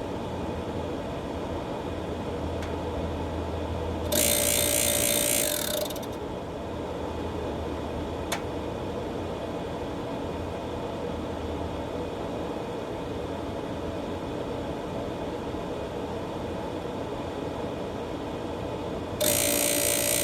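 Green Mountain Grill Jim Bowie pellet grill running with a steady mechanical hum, broken twice, about 15 seconds apart, by a very loud harsh noise lasting about two seconds each time. It is the noise heard when the auger motor runs after the auger was cleaned and reassembled; the cause is unknown.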